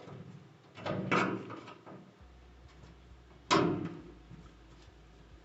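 Handling noises from working on a top-load washer: a couple of rattling clunks about a second in, then one sharp knock that rings briefly a little past the middle.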